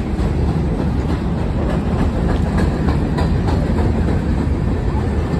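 Freight cars of a mixed freight train rolling across a steel girder railroad bridge: a steady rumble with scattered clacks from the wheels.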